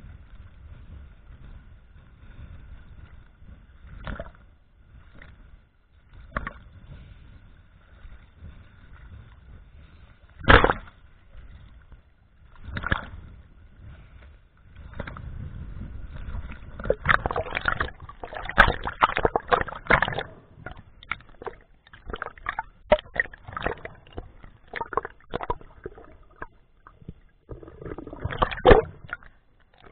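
Choppy sea water sloshing and splashing against a camera's waterproof housing as it bobs at the surface, with a low rumbling wash, a sharp slap about a third of the way in and a busy stretch of crackling splashes past the middle. Near the end the camera goes under and the sound turns to a muffled underwater gurgle.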